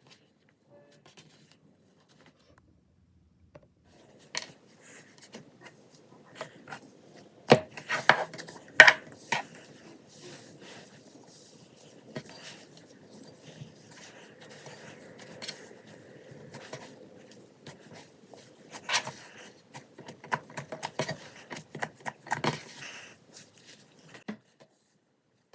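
Slime being handled out of its plastic container, making a run of sharp clicks, taps and sticky squishing sounds that come and go. The loudest clusters fall a third of the way in and again later.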